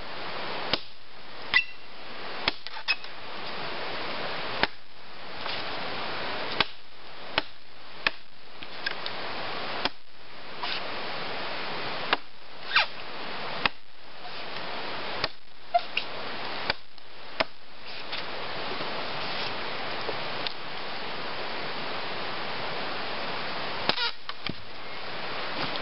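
Woodsman's Pal 481 steel brush blade chopping into a dead log: sharp single chops, roughly one a second, with a pause of several seconds before a last couple of blows near the end.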